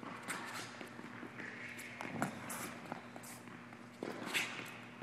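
Athletic shoes scuffing and squeaking on a hard tennis court with quick footfalls as a player shuffles sideways and cuts, giving several short high-pitched squeaks and a few sharp steps.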